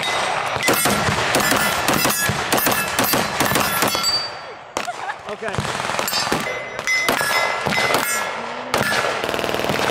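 A string of gunshots from an AR-style semi-automatic rifle, then, after a short lull about halfway through, more rapid shots from a compact MP5K-style pistol. Brief metallic rings sound between some of the shots.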